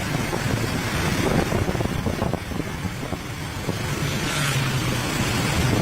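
Motor vehicle engine and street traffic running steadily, with a short low hum about four and a half seconds in.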